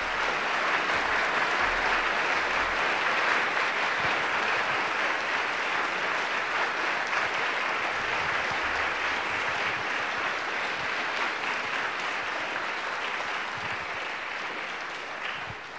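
Audience applauding at the close of a talk. The clapping swells in the first second, holds steady, then dies away just before the end.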